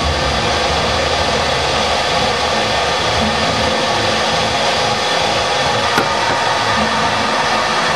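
Canister vacuum cleaner running steadily, a loud even rush of air with a motor whine. A single short click about six seconds in.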